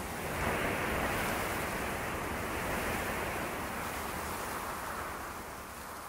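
A whoosh sound effect: a steady rush of noise like wind or surf that swells up in the first second and then slowly fades.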